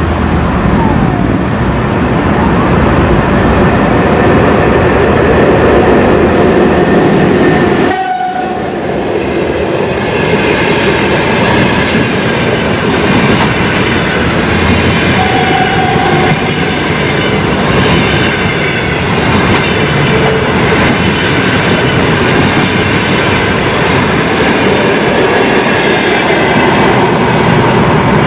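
Passenger train hauled by an EP1M electric locomotive passing at speed close by: a loud, steady rush and clatter of coach wheels over the rails, with a brief dip about eight seconds in.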